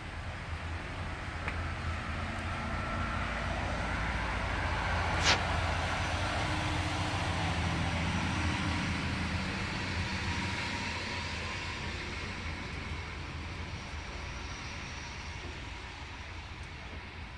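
Distant vehicle rumble that swells through the middle and slowly fades toward the end, with one sharp click about five seconds in.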